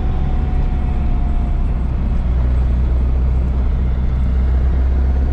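Turbocharged Nissan SR20DET four-cylinder in a BMW E30 cruising steadily in third gear, heard from inside the cabin as a low engine drone mixed with road noise. A faint steady whine sits above it.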